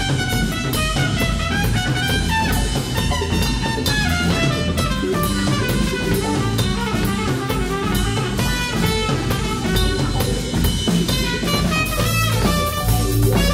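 Live band music: a horn section of trumpet, alto and tenor saxophones playing a melody together over drum kit, electric bass and electric guitar.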